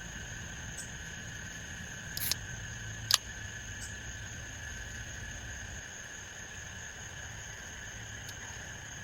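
Insects trilling steadily at several high pitches over a low rumble. There are two sharp clicks, about two and three seconds in, and the second is the loudest.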